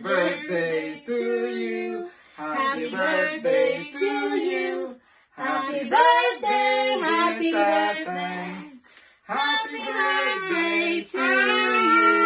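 A woman and girls singing together, unaccompanied, in phrases of held notes with short breaths between them about two, five and nine seconds in.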